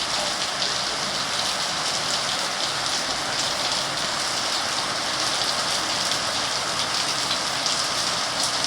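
Steady heavy rain falling in a backyard: a dense, even hiss flecked with fine drop ticks.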